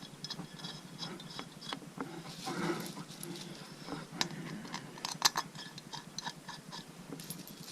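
Scattered small metal clicks and taps: hands handling bolts and parts while lining up and fitting a motorcycle's stator cover on the engine case.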